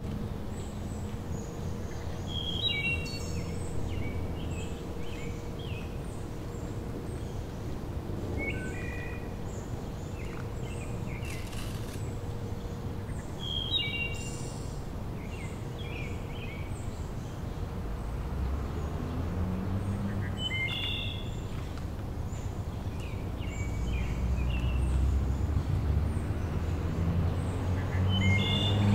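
Wood thrush singing: short fluting phrases, each ending in a higher trill, repeated every five to six seconds. A low rumble grows louder in the second half.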